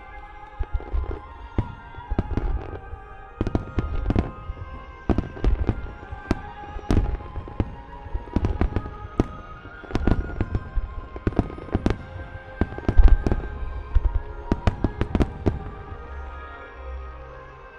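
Fireworks shells bursting overhead in quick, irregular succession, each a sharp bang with a deep low end, the loudest cluster a little past the middle, over the programme's theme music.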